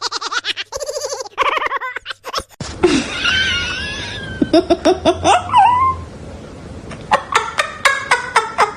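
People laughing in quick bursts, broken by a cut about two and a half seconds in. A noisier stretch follows with high, wavering gliding calls, and then more laughter near the end.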